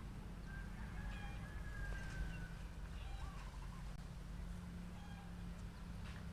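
Distant bird calls over a steady low rumble, including one long, slightly falling call in the first two seconds and a wavering call about three seconds in.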